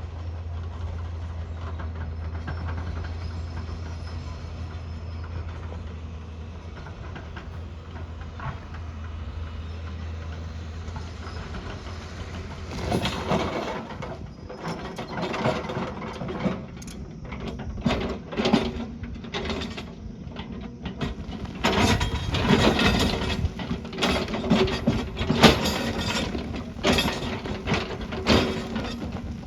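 A heavy construction machine's engine runs with a steady low hum, then from about 13 seconds in a run of irregular, loud clanks and knocks begins, as of steel parts working.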